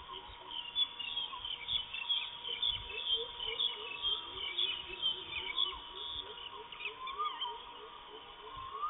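Wild birds calling in an outdoor chorus, with many short high chirps throughout. From a couple of seconds in, a lower note repeats a couple of times a second. A faint steady whine runs underneath.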